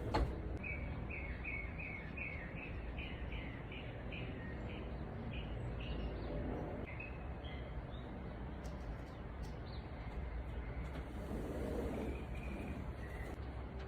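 A squirrel chirping to get attention: a quick run of short chirps, about four a second, then slower scattered chirps, over steady low background noise. A sharp click right at the start.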